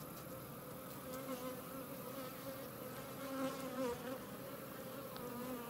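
Many honey bees buzzing on a brood frame lifted from the hive: a steady hum whose pitch wavers slightly, swelling a little in the middle.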